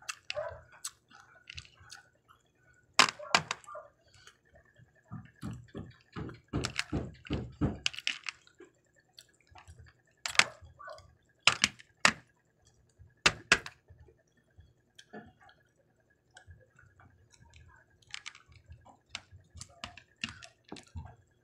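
Wooden chopsticks clicking and tapping against hard-shelled peanut M&M candies on a plate: irregular sharp clicks, a few of them loud, with a run of duller knocks a few seconds in.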